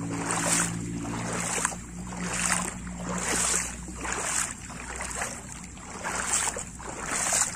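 Footsteps wading through shallow floodwater among submerged grass, a swish of water about once a second.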